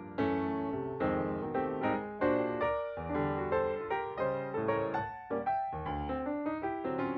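Background piano music, a light melody of struck notes played at a steady moderate pace.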